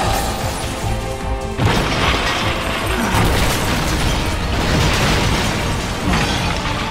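Dramatic battle music mixed with explosion sound effects and crashing debris, with a heavy impact about a second and a half in.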